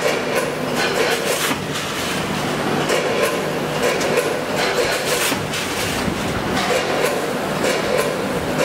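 SUN-420W vertical form-fill-seal packing machine running as it makes, seals and cuts bags: a steady mechanical hum with a string of sharp clacks from the sealing and cutting mechanism.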